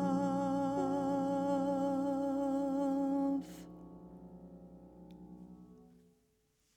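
The closing held note of a jazz ballad: a female voice sustains a note with vibrato over a ringing piano chord. The voice stops about three and a half seconds in, and the piano chord rings on and fades out by about six seconds.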